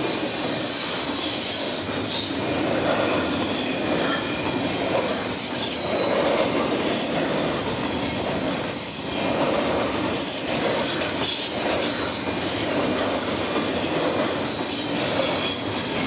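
Intermodal freight train's container cars passing at speed: a steady rolling rumble of steel wheels on rail that swells and eases every second or two.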